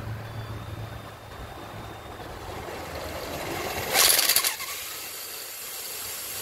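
Handheld power drill spinning a Lexus LS400 alternator's shaft on the bench to test its charging output, running with a low hum that builds up, then a loud brief rattling burst about four seconds in. The drill turns the alternator too slowly to bring the voltage up.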